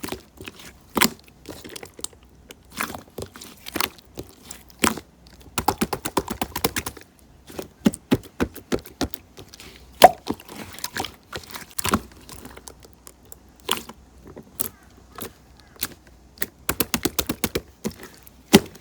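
Irregular sharp clicks and knocks, scattered singly and in quick runs, the loudest about halfway through.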